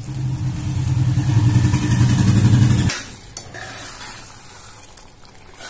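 Hot water poured into a steel pot of thick, simmering spinach gravy to thin it out. It makes a loud, low, steady sound that stops abruptly about three seconds in, followed by a steel ladle clinking once against the pot and quiet stirring.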